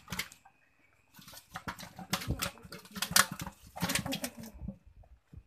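A quick, irregular clatter of knocks and rustles from handling a metal pot, starting about a second in and lasting some three and a half seconds.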